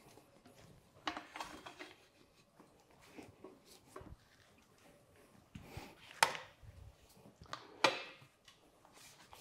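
Scattered faint knocks and clacks as a motorcycle tire and tools are handled on a manual tire changer, loudest a little after six seconds in and again near eight seconds.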